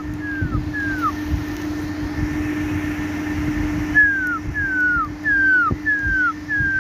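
A run of short, high calls, each falling in pitch, about two a second; they stop for about three seconds mid-way and then resume. A steady low hum runs underneath.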